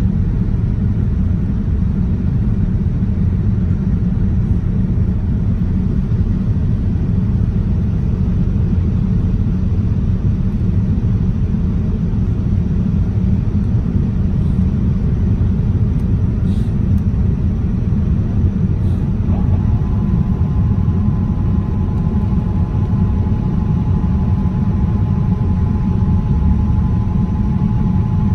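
Boeing 787-9 cabin noise heard from a window seat during the climb after takeoff: a steady, loud low rumble of jet engines and airflow. About two-thirds of the way through a steady whine joins it and holds.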